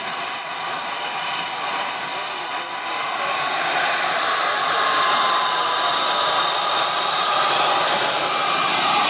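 RC T-33 model's jet turbine running on the ground: a steady high whine over a rushing hiss, growing louder about three seconds in.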